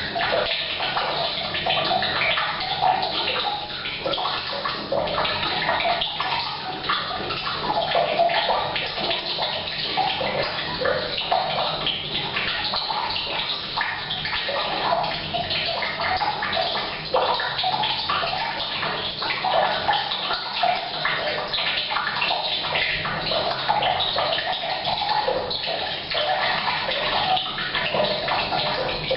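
Rain falling on a roof mixed with mains water pouring from a pipe into a water tank: a steady, dense splashing that echoes in a bathroom.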